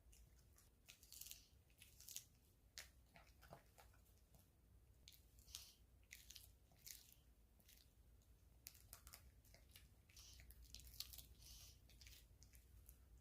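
Maltese dog biting and chewing raw napa cabbage: faint, irregular crisp crunches and wet crackles of the leaves, one after another.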